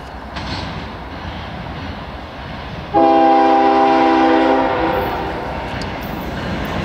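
GE Dash-9-44CW freight locomotive approaching with a low rumble, then sounding its air horn in one loud chord of several notes about three seconds in, held for under two seconds.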